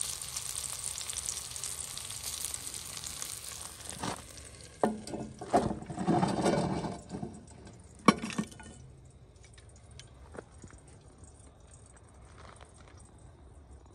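Brussels sprouts and garlic sizzling in a hot pan for the first few seconds. Then come several sharp metal clanks and knocks around a cast-iron Dutch oven topped with charcoal briquettes, the loudest about eight seconds in, before things fall quiet.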